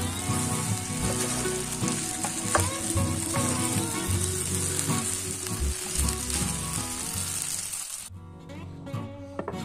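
Spaghetti and minced-meat sauce sizzling in a hot frying pan as it is tossed and stirred with a wooden spatula; the sizzling cuts off about eight seconds in. Soft background music plays underneath.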